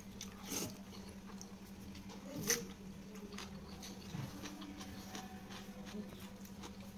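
A person eating wet rice by hand: a few short, faint mouth and chewing sounds, the loudest about two and a half seconds in, over a steady low hum.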